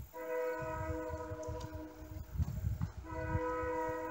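Approaching locomotive's multi-chime air horn sounding: one long blast, a break, then a second long blast starting about three seconds in, part of a sequence for a grade crossing. A low, uneven rumble runs underneath.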